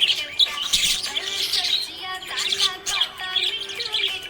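Small parrots chirping and twittering in rapid, overlapping calls.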